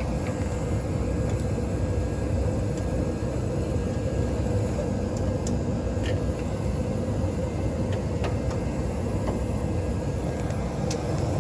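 Day and Night N80ESN 80% gas furnace running while it fires, a steady low rumble with a faint steady hum through it and a few faint ticks.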